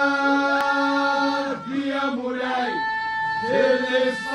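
A group of men chanting in unison, holding long, steady notes in phrases with short breaks between them.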